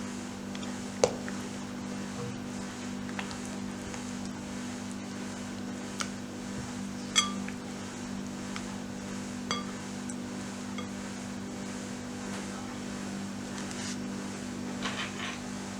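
A few sharp clinks of a utensil against a bowl, four spread out and a quick little run near the end, some with a short ringing tone. A steady low hum runs underneath.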